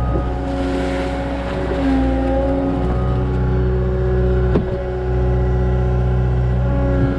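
CAT 279 skid steer's diesel engine running under working load, its pitch shifting as the load changes, with a single sharp metallic knock a little past halfway.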